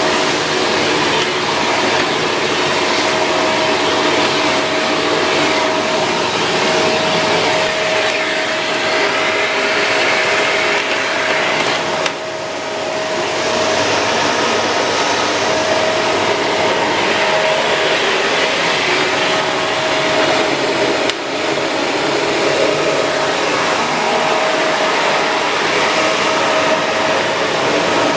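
Shark Rotator Pro Lift-Away NV500 vacuum cleaner running steadily: a constant rushing noise with a steady whine in it. The sound dips briefly twice, about twelve and twenty-one seconds in.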